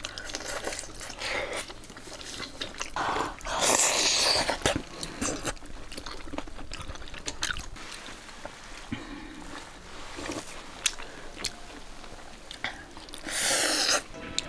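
People eating rice balls in broth with chopsticks from porcelain bowls: chewing, two loud slurps (one about three and a half seconds in, one near the end), and scattered light clicks of chopsticks against the bowls.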